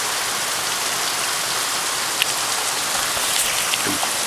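Heavy rain falling steadily, an even hiss of downpour with a few sharper drips standing out.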